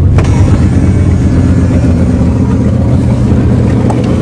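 1976 Chrysler New Yorker's 400 V8 running at a steady fast idle on choke, minutes after a cold start.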